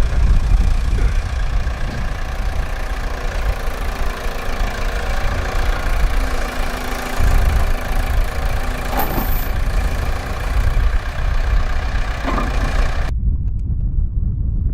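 A vehicle engine idling steadily under heavy wind buffeting the microphone. Near the end the engine sound cuts off abruptly, leaving the low wind rumble.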